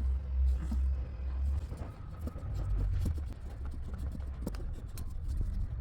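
Light irregular taps and knocks as Remflex gasket material is pressed and worked against the exhaust manifold flange to print out the stud holes, over a low steady rumble.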